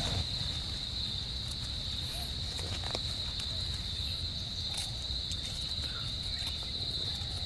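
Steady high-pitched drone of insects chirring in the forest undergrowth, with a few faint clicks and scrapes of a small knife digging into soil around a mushroom's base.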